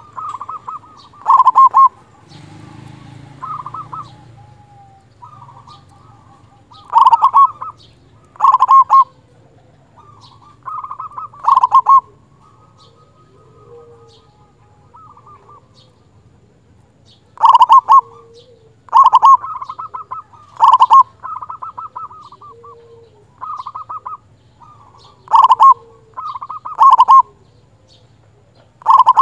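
Zebra dove (local perkutut) singing in full voice: loud, rapidly pulsed coos in bursts every second or two, with softer coos between and a lull of a few seconds midway.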